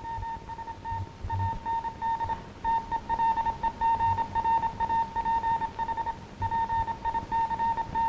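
Morse code radiotelegraph signal: a single high-pitched beep keyed on and off in quick dots and dashes, getting louder about three seconds in, with a couple of short breaks.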